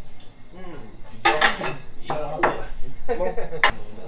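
Crickets chirring in one steady high note, with bursts of men's voices over them and a couple of sharp clacks, the sharpest near the end.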